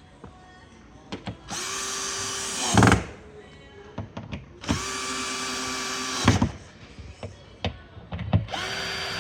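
Cordless drill driving screws into a timber block: three runs of a steady whine, each about a second and a half long. The first ends in a loud burst as it stops, and the third is still running at the end. Small clicks and knocks come between the runs.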